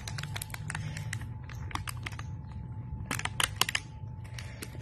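Irregular light clicks and crinkles of a clear plastic food container and plastic food bags being handled, loudest a little after the middle, over a low steady hum.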